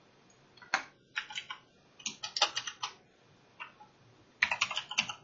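Typing on a computer keyboard: a few scattered keystrokes, then quick runs of keystrokes with short pauses between, the fastest run near the end.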